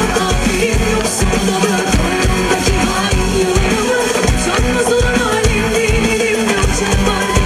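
Live Turkish pop performance: a woman singing into a microphone over a full band with a steady drum kit beat and guitar, amplified through the PA.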